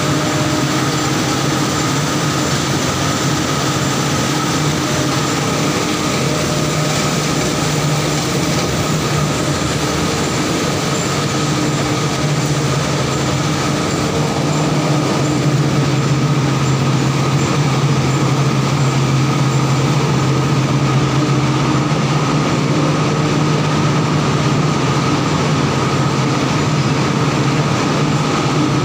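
Mustard oil mill machinery running: a loud, steady mechanical hum with a low drone and a steady higher tone over it. It grows a little louder about halfway through.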